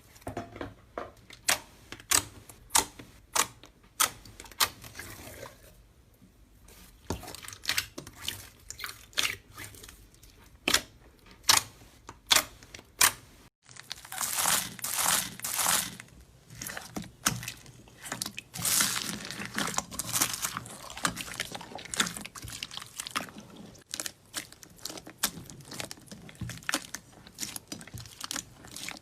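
Slime being worked by hand: a run of sharp, separate pops and clicks. After a sudden break about halfway through, it turns into denser bouts of crackling.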